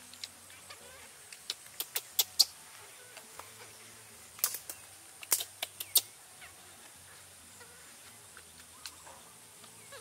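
Sharp plastic clicks and taps from a baby feeding bottle and its cap being handled, in two quick clusters about two and five seconds in, over a steady high-pitched insect drone from the surrounding grass.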